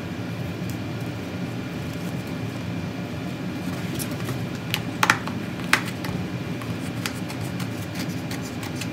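Scissors snipping along the edge of gold foil poster board: a few short, sharp snips about four to six seconds in, over a steady background hum.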